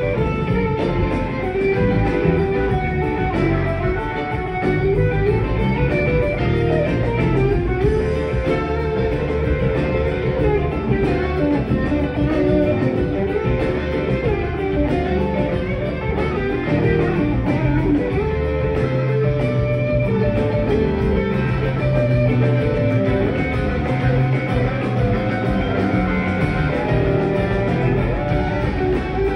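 Live rock band playing, guitars to the fore over bass, drums, Hammond organ and keyboards.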